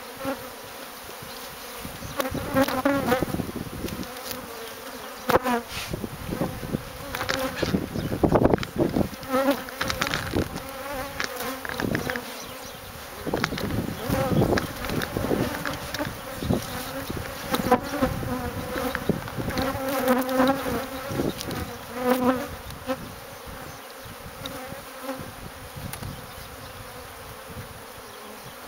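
A dense, continuous hum of many honeybees from a colony opened up and disturbed during comb removal. Irregular knocks and rustles from close handling come in clusters through it.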